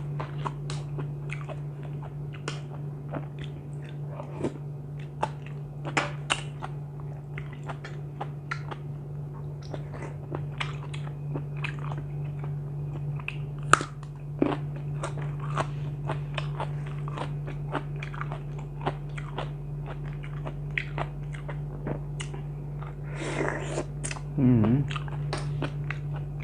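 A person chewing and crunching mouthfuls of mixed-seafood papaya salad and raw vegetables, close to the microphone, with many crisp crunches throughout, over a steady low hum.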